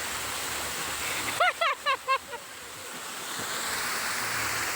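Continuous rush of water from an artificial waterfall pouring into a pool. About a second and a half in, a high young voice gives four or five short calls in quick succession. After the calls the water sound dips briefly, then swells back.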